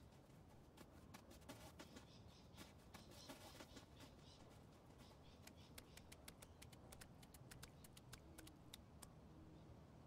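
Near silence: faint hiss with scattered faint clicks, thickest in the second half.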